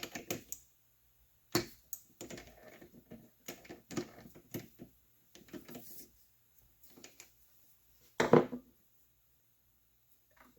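Irregular metallic clicks and short knocks from hand work at a lathe chuck, as the chuck is tightened on a 1/4-inch rod and a thread is cut on it; it isn't gripping tight enough, so the rod slips. One louder knock comes about eight seconds in.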